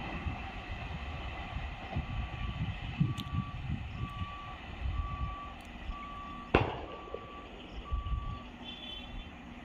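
An electronic warning beeper sounding a single steady tone about once a second, over a low rumble. A single sharp knock comes about two-thirds of the way through.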